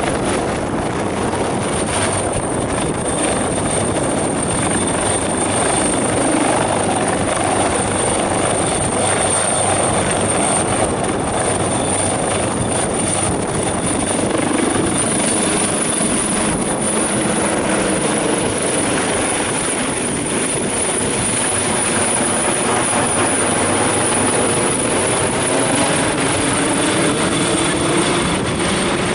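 AW139 twin-turbine helicopter taking off: rotor blades and turbines at lift-off power as it rises, passes low and climbs away overhead. The sound stays loud and steady throughout.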